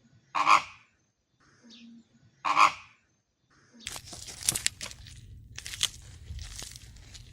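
A bird calling twice, with short loud calls about two seconds apart, followed from about four seconds in by rustling and clicking noise.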